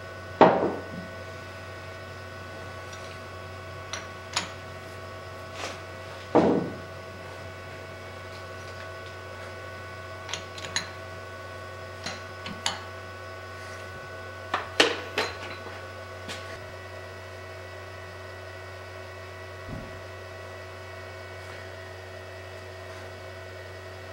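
Scattered metal clinks and knocks of a centre plug, chuck key and tailstock centre being handled at a stopped lathe, three of them louder, about half a second in, six seconds in and fifteen seconds in. A steady electrical hum runs underneath.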